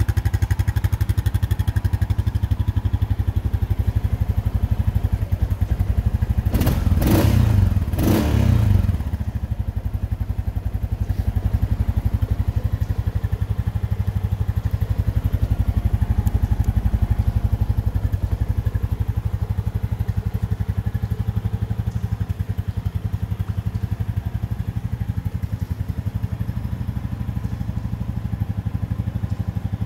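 Honda Rubicon 520 DCT ATV's single-cylinder engine running on its stock exhaust, mostly at a steady idle. It is blipped twice to a quick rev a little after six seconds in.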